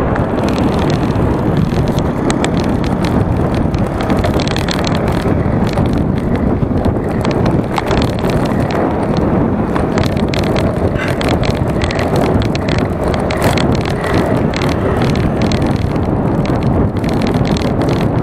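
Steady wind rush over an action camera's microphone while riding a bicycle along an asphalt road, with low tyre and road rumble and frequent small clicks and rattles.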